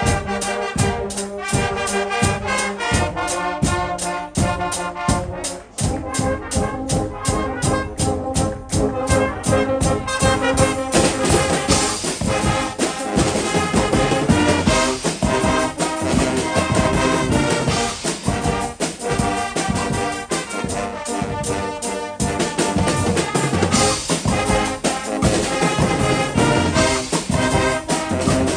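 A Guggenmusik brass band playing live: sousaphones, euphoniums, trumpets and trombones over a drum kit keeping a steady beat. The band grows fuller about ten seconds in.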